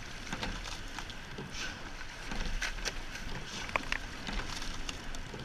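Racing eight rowed at race pace, about 30 strokes a minute: water rushing along the hull and oar blades, with sharp clicks and knocks from the oars in the oarlocks as the strokes come through.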